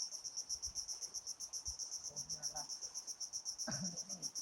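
Cricket chirping steadily: a continuous high-pitched, rapidly pulsing trill at about a dozen pulses a second. Faint voices murmur briefly in the background about halfway through and near the end.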